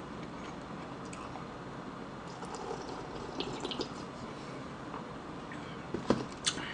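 A man drinking from a small disposable cup: faint sips and swallows of liquid over a low steady hiss, with a few soft clicks near the end.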